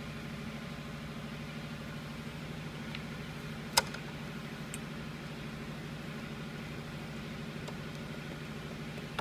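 Steady low background hum, with one sharp click a little under four seconds in and a few fainter ticks as a metal saddlebag mounting bracket is handled and fitted against the motorcycle frame.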